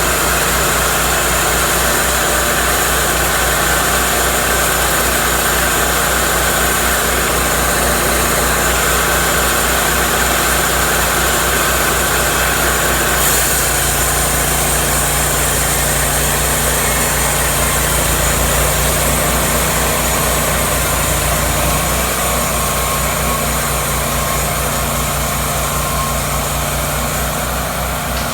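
Cook's MP-32 portable sawmill running, its engine a loud, steady drone. About halfway through, a high whine stops and the engine note shifts.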